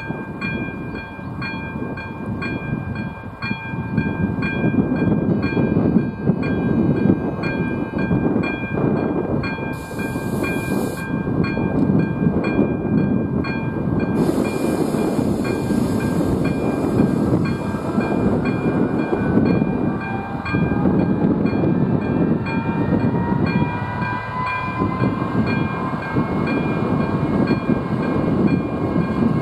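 Electronic warning bell of an AŽD 97 level crossing ringing in a steady rapid pulse, about twice a second, while a passenger train runs over the crossing with heavy wheel-and-rail rumble that swells from about four seconds in. Rising squealing tones enter in the second half.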